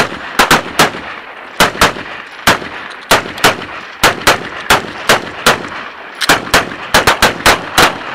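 Rapid gunfire from two shooters at once: a 9mm pistol and an AR-15-style rifle, several sharp shots a second in uneven strings with short pauses between them.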